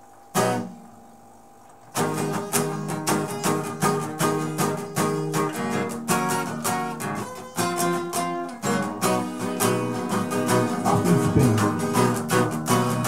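Acoustic guitar strummed: a single chord about half a second in that rings and fades, then from about two seconds in steady rhythmic strumming at about two strums a second.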